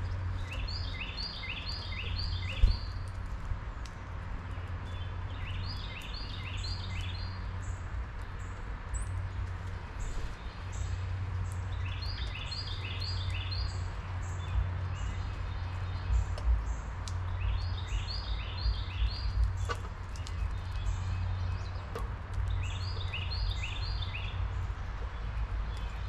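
A songbird singing a short phrase of about five quick down-slurred whistled notes, repeated about every six seconds, over a steady low background rumble.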